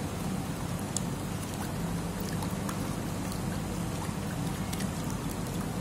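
A plastic spoon stirring a thin blended mushroom mixture in a ceramic bowl, giving a few faint clicks and scrapes over a steady background noise.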